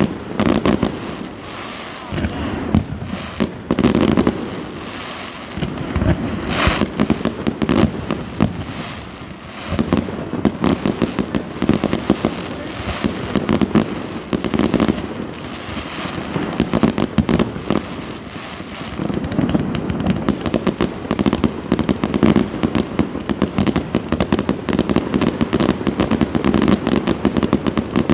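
Fireworks going off continuously: a dense run of rapid cracks and bangs, with no break.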